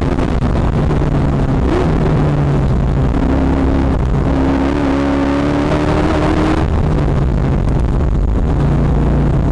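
Katech-built V8 of a C6 Corvette Z06 race car under way, heard from inside the cockpit. The engine runs at about 4,000 to 5,000 rpm, and its note steps up and down in pitch a few times as the car takes corners.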